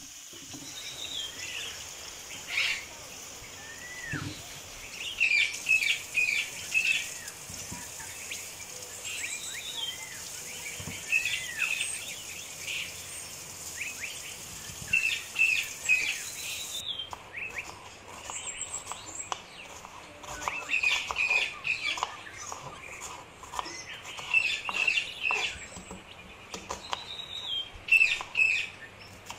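Small birds chirping and twittering in repeated short bursts of quick high notes, with a few brief falling whistles between them.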